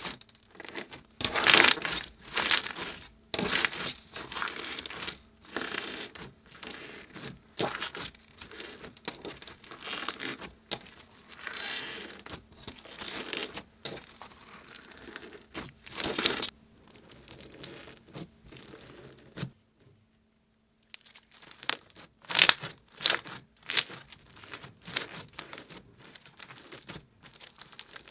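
Clear putty loaded with foam beads being squeezed, folded and pressed by hand, giving dense irregular crackles and crinkles as the beads shift and pop in the sticky putty. There is a brief silent break about two-thirds of the way through.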